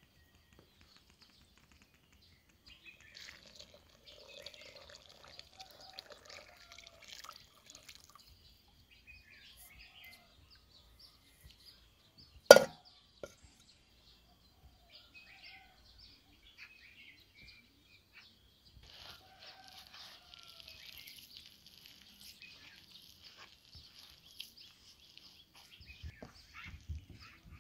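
Hands mixing and kneading wet flour into naan dough in a plastic basin, with faint on-and-off squishing and crackling. A single sharp knock about twelve seconds in.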